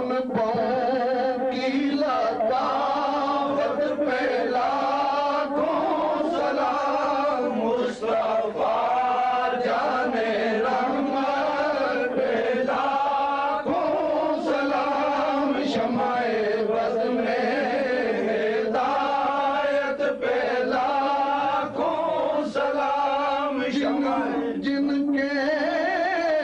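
Sufi devotional chanting: a voice sings long, wavering melodic lines almost without pause over a steady lower held note.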